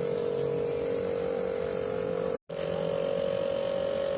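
A steady buzzing hum at one pitch, cut off completely for a split second about two and a half seconds in.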